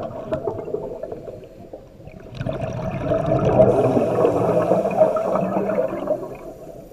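Scuba regulator exhaust bubbles underwater as a diver exhales: a fading burble, then a longer, louder gush of bubbling from about two seconds in that dies away near the end.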